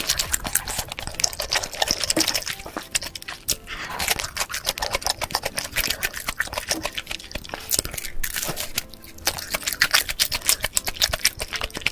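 Close-miked eating sounds: crunching and chewing of crispy food, with wet mouth and lip smacks. There is a dense run of sharp crackles, thinning briefly about nine seconds in.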